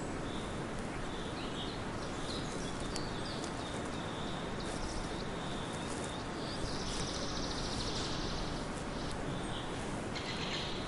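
Forest ambience: scattered short bird chirps over a steady noisy hiss, with a fast buzzy trill lasting about two seconds past the middle.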